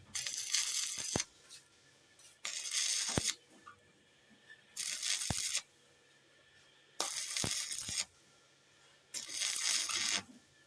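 Stick-welding arc crackling on thin mild-steel square tube in five short bursts of about a second each, with quiet gaps between: the arc is struck and broken again and again.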